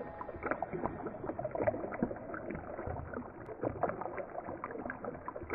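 Water splashing and gurgling in a busy, irregular patter of small splashes.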